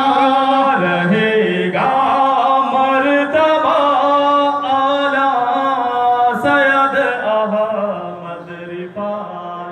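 A voice singing a devotional song in praise of a saint (a manqabat), in a chant-like melody with long held, gliding notes. It starts fading out about eight seconds in.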